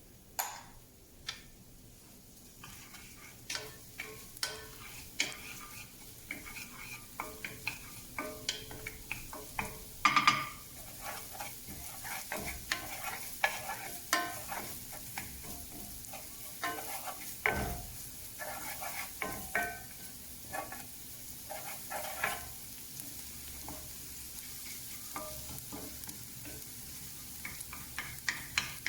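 Chard sautéing in olive oil in a pan: a steady sizzle, with the irregular knocks and scrapes of a utensil stirring it against the pan. The loudest clatter comes about ten seconds in.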